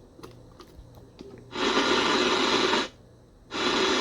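A few faint clicks, then loud hiss-like radio static from the Realistic Chronomatic 260 clock radio's speaker. It starts about one and a half seconds in, cuts out for under a second, and comes back near the end.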